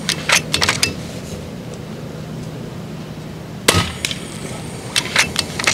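A single shot from a .30 calibre FX Impact MKII PCP air rifle a little past halfway through. Short runs of sharp metallic clicks come before and after it as the rifle's side-lever cocking action is worked.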